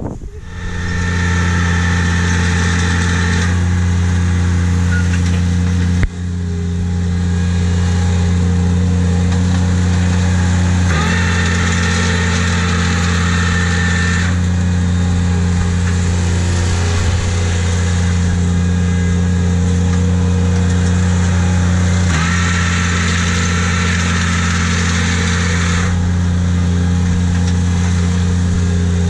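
Engine of a ride-on spike aerator running steadily at working speed as it drives over loose soil, with a higher whine that comes and goes.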